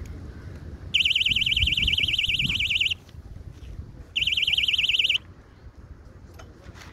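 Electronic fishing bite alarm on a rod sounding a fast, warbling high tone twice: about two seconds, then about one second. It signals a fish pulling on the line.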